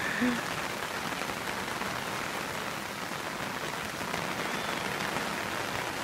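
Heavy rain falling steadily on the river and its surroundings, an even, dense hiss.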